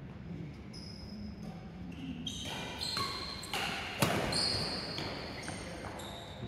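Badminton rally: rackets striking the shuttlecock and shoes squeaking in short high chirps on the court floor, with the loudest crack about four seconds in, an overhead jump smash.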